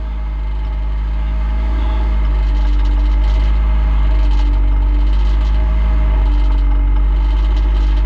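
Peugeot 208 R2B rally car's engine idling steadily, heard from inside the car.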